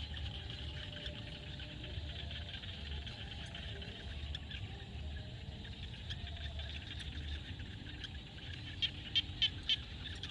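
Frog chorus in a field: a steady, dense calling with a low rumble underneath. Near the end one frog gives a run of about five loud, evenly spaced notes, about three a second.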